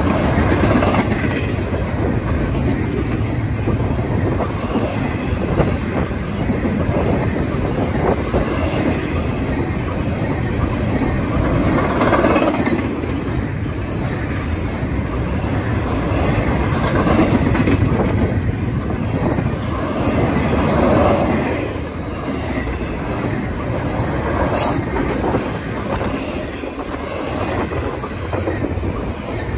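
Double-stack intermodal well cars rolling past on the rails: a steady rumble with the clickety-clack of steel wheels over the track, swelling louder for a while and easing again as the cars go by.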